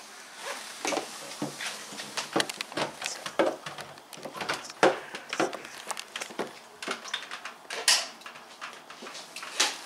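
Irregular hard plastic clicks, knocks and rattles as water-filter cartridges are handled and fitted in an under-sink filter unit, with a sharper knock about 5 s in and another about 8 s in.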